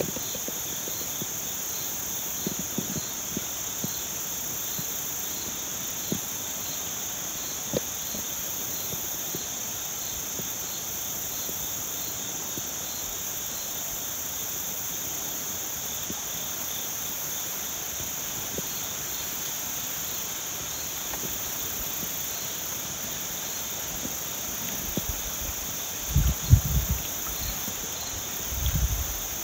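Steady daytime chorus of insects: a continuous high buzz, with a softer chirp repeating about once or twice a second. A few low bumps come near the end.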